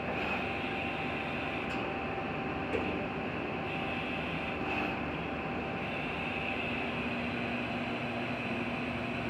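Amada CNC press brake running: a steady machine hum with a constant high whine over it, and a lower tone that changes pitch a little past the middle.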